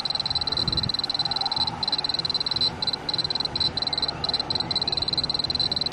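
Unipar SL700 police laser speed gun sounding its high, rapidly pulsing firing tone as it is aimed at a moving car, the tone breaking off for a moment several times.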